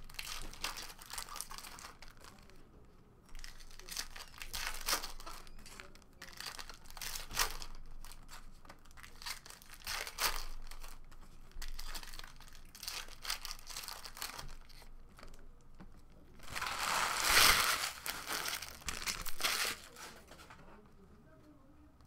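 Foil trading-card pack wrappers crinkling and tearing as Topps Chrome football packs are ripped open, in repeated short bursts. The loudest stretch comes about three-quarters of the way through.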